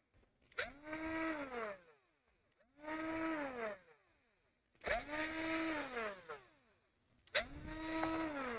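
Small electric screwdriver backing out tiny laptop screws: four short runs, each motor whine rising in pitch as it spins up, holding, then falling away as it winds down, several starting with a sharp click.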